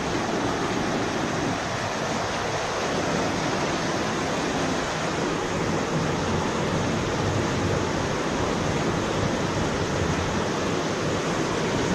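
Steady rush of flowing water running through a flooded stone culvert tunnel.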